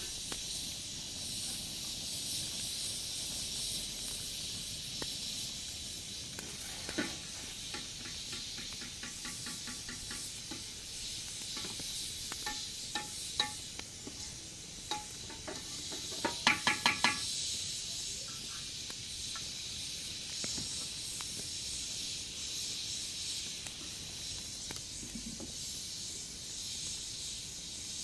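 Steady hissing from a large cooking pot steaming over an open wood fire, broken by a few bursts of clinking, the loudest a quick run of clinks about two thirds of the way through.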